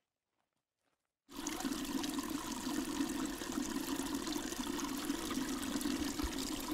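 Small mountain stream splashing steadily over a low ledge into a shallow pool, starting suddenly about a second in after near silence.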